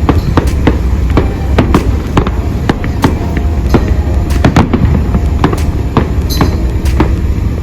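Fireworks display going off: a rapid, irregular barrage of bangs and crackles over a continuous low rumble.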